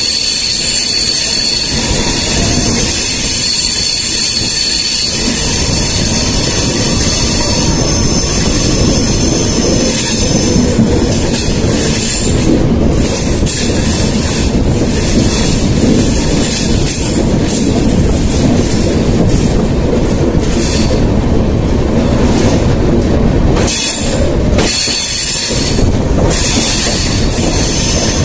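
Passenger train running through a rock tunnel, heard from an open coach doorway: a loud, steady rumble of wheels on rail. A high wheel squeal rides over it for roughly the first ten seconds.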